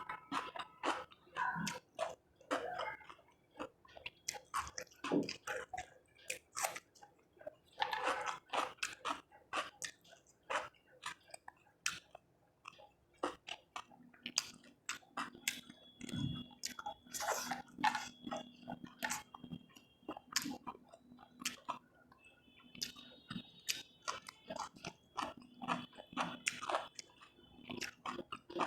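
A person chewing food close to the microphone, with many short crunchy bites and wet mouth clicks, eating fried rice with cucumber and chicken.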